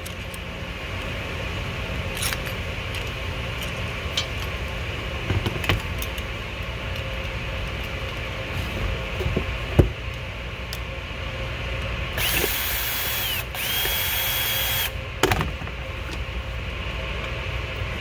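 Porter-Cable 20V cordless drill spinning up in two short runs of about a second each, its whine rising quickly then holding steady, as it drives the bolts into the pump motor's housing. Scattered clicks and knocks of parts being handled come before it, the loudest a sharp knock about ten seconds in.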